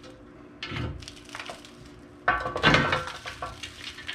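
Front skid plate and its mounting hardware being worked loose by hand under a UTV: scattered knocks and clatter, the loudest a clank with a brief ring a little past halfway.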